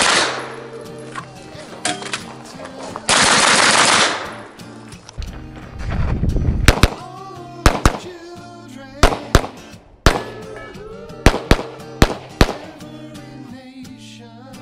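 Gunfire on a shooting range: two dense, very fast strings of shots from a carbine, each about a second long, then separate sharp pistol shots spaced a fraction of a second to about a second apart. Background guitar music runs underneath.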